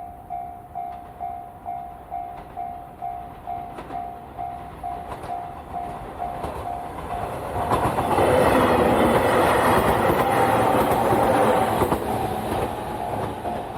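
Level-crossing alarm bell ringing at a steady ding-ding beat, then an 813 series electric multiple-unit train running over the crossing: its wheels clatter and rumble loudly for about four seconds, drowning out the bell, which can be heard again near the end.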